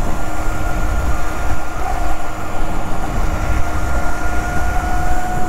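Burromax electric minibike riding at traffic speed: heavy wind rush and road rumble on the microphone, with a steady high whine from the electric motor and chain drive that creeps slightly higher in pitch partway through.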